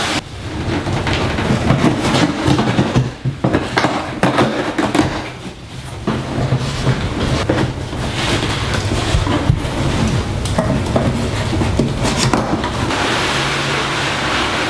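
Cardboard boxes and packaging handled and pulled apart: continuous rustling and scraping with frequent light knocks, over a steady low hum.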